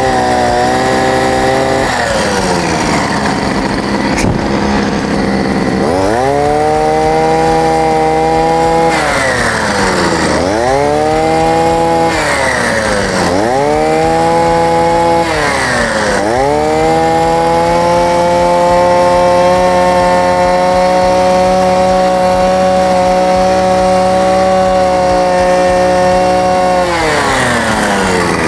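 Two-stroke Bosco brush cutter with a tiller attachment working soil, its engine revved up from idle and let back down several times: a rev about six seconds in, three short bursts, then a long steady run at high revs of about ten seconds before it drops back to idle near the end.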